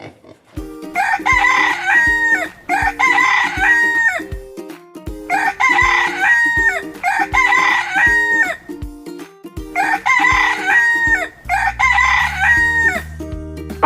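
Rooster crowing: three pairs of short crows, evenly spaced, each crow ending in a falling note, over background music with a steady beat.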